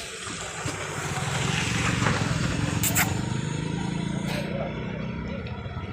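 A motor vehicle's engine running, growing louder about a second in and then holding steady, with a couple of faint clicks.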